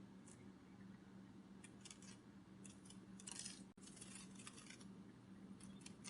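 Faint butterfly wing-flutter sound effect: several short, crisp papery rustles in irregular clusters, over a low steady hum.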